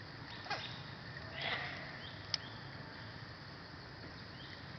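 A macaque handling and eating plant stems: a few short rustles and a sharp click, with a slightly longer rustle about a second and a half in, over a steady outdoor background hiss.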